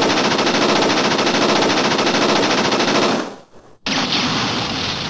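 Hawk Gatlinger gatling-gun sound effect: a loud, rapid, even rattle of shots for about three seconds that then stops. A second loud, noisier blast starts about four seconds in and fades away.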